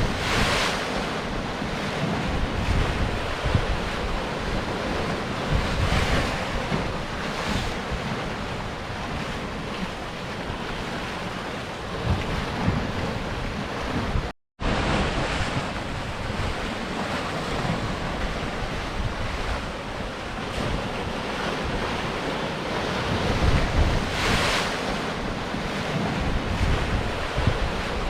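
Sea surf washing against rocks: a continuous rush of waves, with louder surges about half a second in, around six and seven and a half seconds, and again near the end. The sound cuts out for a split second about halfway through.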